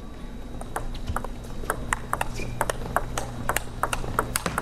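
Table tennis rally: the ball clicking off the bats and the table in a quick, uneven series of sharp ticks, over a steady low hum.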